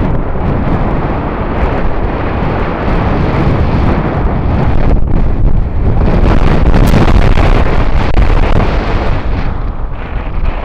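Strong wind buffeting the microphone: a loud, rough rushing noise heaviest in the low end, gusting up and down and easing a little near the end.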